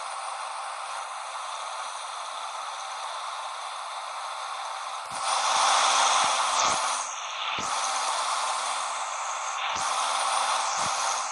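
John Deere 8R tractor running, heard as a steady hiss-like noise with a faint steady hum. It grows clearly louder about five seconds in, with a few brief low knocks.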